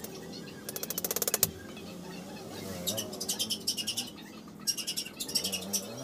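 Three bursts of rapid, even clicking from a ratcheting screwdriver driving screws into the corners of a wooden stool frame.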